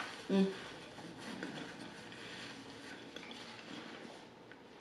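Faint chewing and mouth sounds of a person eating, with a brief hummed voice sound about a third of a second in and small scattered clicks after.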